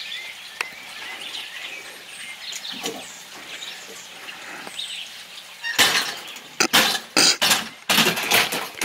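Birds chirping faintly, then from about six seconds in a run of loud, rough bumps and rattles as a wheeled pressure washer is dragged across a wooden porch.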